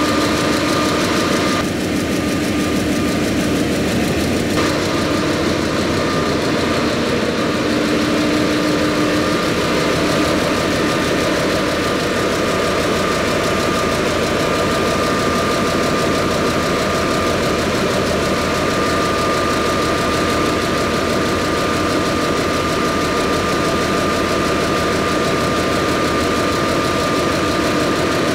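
Large engine fitted with a Heinzmann electronic governor, running steadily and loudly: a dense fast rumble with a steady high-pitched whine over it.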